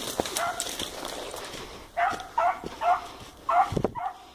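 Dog barking in short, sharp barks: two at the start, then after a pause a quick run of about six barks in the second half.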